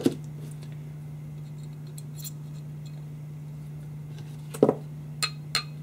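Small metal hand tools being handled on a workbench: a few light clicks, a knock about four and a half seconds in, then two sharp, ringing metal clinks near the end. A steady low hum runs underneath.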